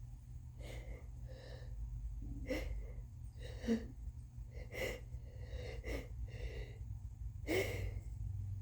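A woman with a heavily congested head cold gasping through a long, breathy sneeze build-up: about eight catching inhalations, roughly one a second, as a sneeze gathers.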